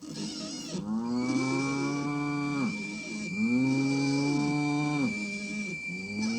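Sound-effect cow mooing three times, each moo about two seconds long, the third starting near the end, over a steady high whistle from a tea kettle and a hiss.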